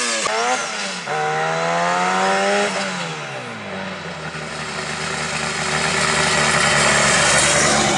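Honda Civic hatchback's four-cylinder engine revving hard during a launch: quick rev sweeps at first, then a steady climb in pitch that drops off about three seconds in. It then runs at low revs, getting louder as the car rolls back toward the listener.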